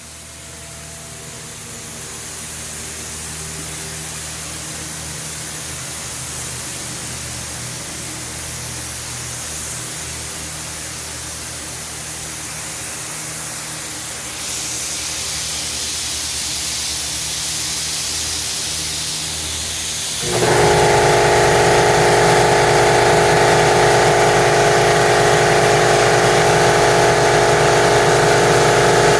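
Steady hiss that builds gradually, then about twenty seconds in a paint sprayer's motor starts suddenly and runs with a steady, even hum.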